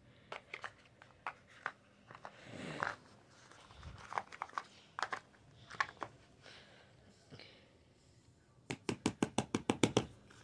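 Handling of a small cardboard jewellery gift box and paper: scattered light clicks and soft rustles, then near the end a quick run of about a dozen sharp taps, a little under ten a second.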